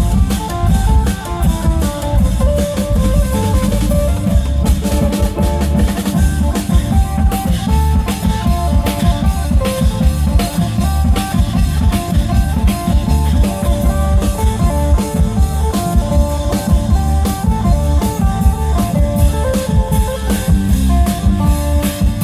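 Isan klong yao ensemble: long drums and other percussion pounding a fast, steady beat under a plucked phin melody.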